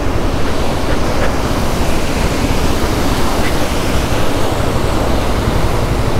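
Waterfall close by: a loud, steady rush of falling water.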